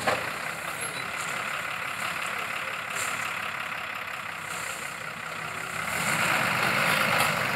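Truck-mounted borewell drilling rig running with a steady, noisy hiss that grows louder about six seconds in.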